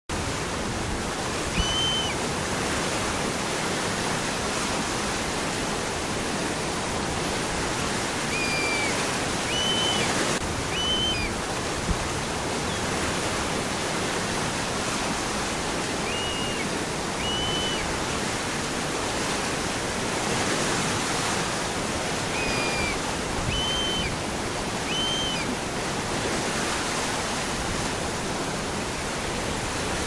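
Steady, full rush of a cascading waterfall, water pouring over rock ledges into a pool. Short high chirps, often in pairs, come every few seconds over the rush.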